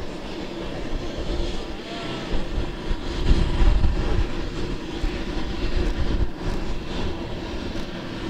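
Formation of four BAE Hawk Mk.51A jet trainers passing overhead, their Rolls-Royce Turbomeca Adour turbofans giving a steady jet engine noise with an uneven low rumble.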